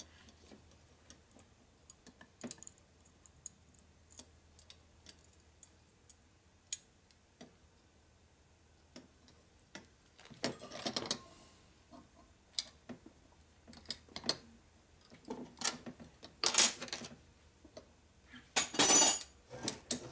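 Small metal parts of a Harley 65A 12-volt generator clicking and rattling under the fingers as brush springs and brushes are worked into the brush holders. Scattered light clicks, with a few louder scratchy rattles in the second half.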